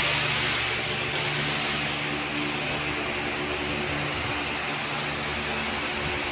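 A steady machine hum under an even rushing noise, unchanging throughout.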